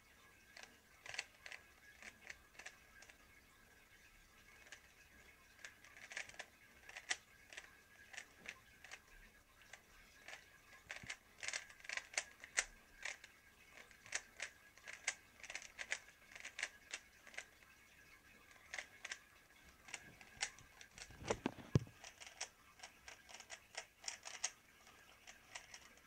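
Rubik's cube being turned rapidly by hand, its plastic layers clicking and clacking in quick irregular runs that grow busier after the first few seconds. A low thump comes about three quarters of the way through.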